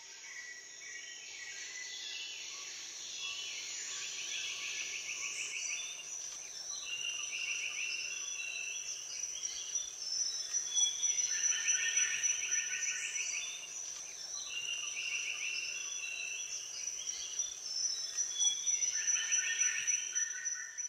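Outdoor nature ambience: a steady high insect drone with a chirping trill repeating about five times, every three to four seconds, cutting off abruptly at the end.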